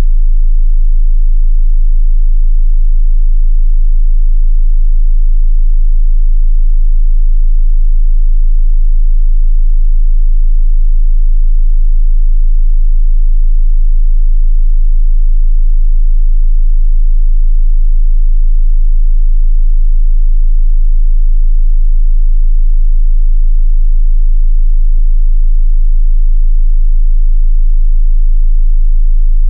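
A steady, loud 27 Hz sine-wave test tone: one unbroken, very deep bass note for testing subwoofers.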